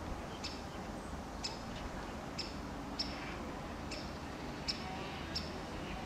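Woodpecker giving short, sharp, high single calls, about six of them at irregular intervals of roughly a second.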